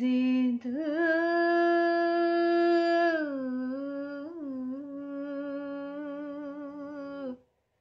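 A woman singing a ghazal unaccompanied, in long held notes: a high note held for about two seconds, a slide down, a brief turn, then a lower note held until she stops near the end.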